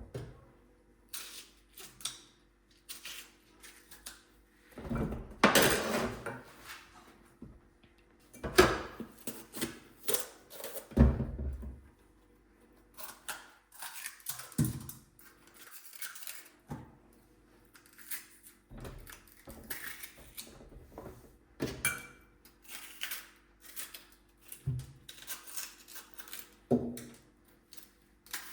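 Kitchen clatter: pots, pans and utensils being handled, with irregular knocks, clinks and scrapes over a faint steady hum.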